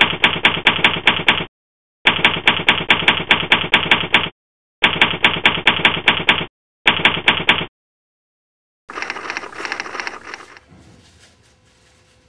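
Typewriter keys clacking in four quick runs of about six strikes a second, broken by short dead silences. A last, rougher burst of clatter comes about nine seconds in, then faint room tone.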